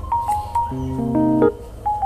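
Background instrumental music: a tune of short steady notes over changing chords.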